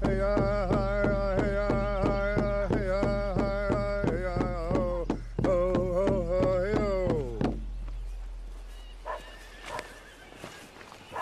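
A man chanting a song over a steady beat on a hand-held frame drum, about four beats a second, his voice holding and sliding between pitches. Song and drum stop about seven and a half seconds in, and a dog barks a few times near the end.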